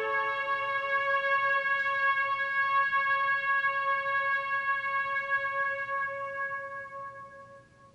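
Slow instrumental music: a single long held note, with a lower note dropping out about half a second in, fading away over the last two seconds.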